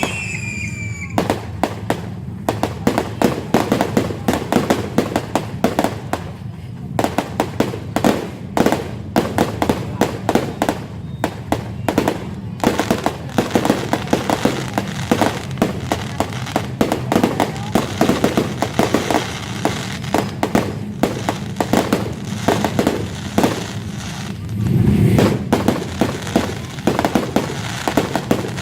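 Fireworks going off in a dense, continuous run of sharp cracks and bangs. A whistle trails off about a second in, and a louder, deeper boom comes near the end.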